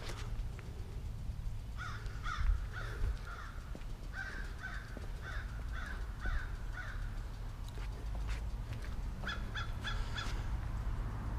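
A bird calling over and over: a run of about ten harsh calls, then a quicker run of about five near the end, over a steady low rumble.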